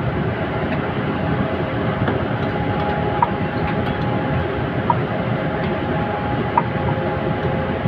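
Steady machine noise, with two faint steady hums over it and a soft tick every second and a half or so.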